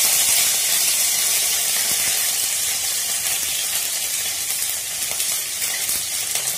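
Hot oil sizzling loudly in a steel pan just after fresh curry leaves were dropped into the tempering of mustard seeds, dals, cumin and garlic. The sizzle eases slightly as it goes.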